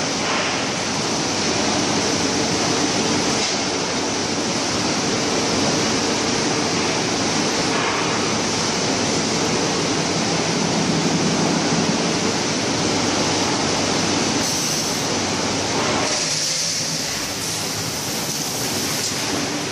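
Steady din of steel drum production-line machinery: a dense, even hiss over a low rumble. About three-quarters of the way through the rumble drops away and a brighter hiss is left.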